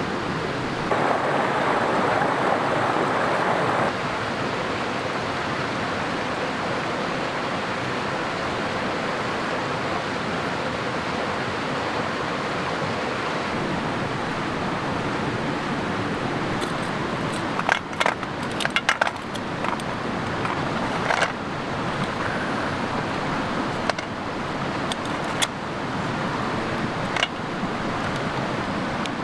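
Rushing mountain creek: a steady wash of cascading water, a little louder for a few seconds near the start. A cluster of sharp clicks comes about two-thirds of the way in, with a few more single clicks near the end.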